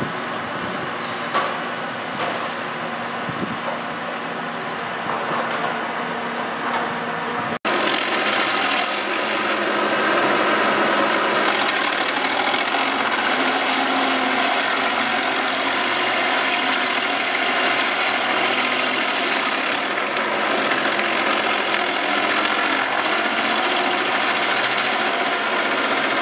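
A steady engine hum with a few short high chirps, then, after an abrupt cut about seven seconds in, a stump grinder's spinning cutting wheel chewing into a tree stump: a louder, dense, even grinding over its engine that holds to the end.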